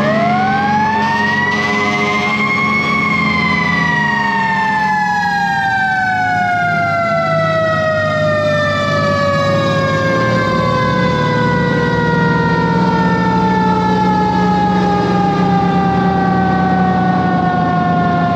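Fire engine mechanical siren winding up to its peak about three seconds in, then slowly coasting down in pitch. Underneath, the truck's 8V71 Detroit two-stroke V8 diesel runs steadily.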